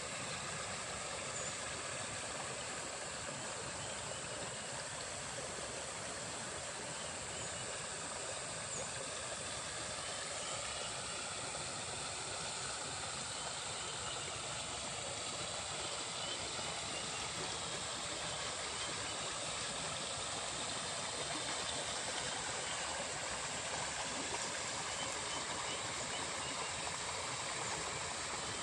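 Water pouring steadily down a small earthen bank into a pond, a constant rushing and splashing where the inflow churns the surface.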